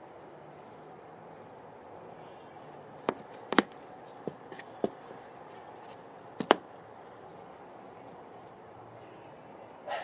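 Sharp, very short clicks or knocks at uneven intervals: five in under two seconds, then one more, the last the loudest, over a steady background hiss. A brief louder sound begins at the very end.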